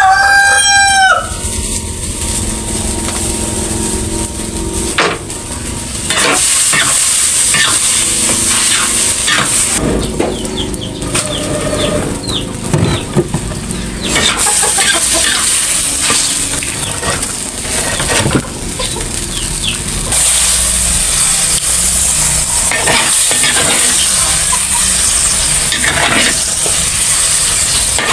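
A rooster crows once at the very start. Then food sizzles as it fries in a pan, with the clicks and scrapes of a utensil stirring it.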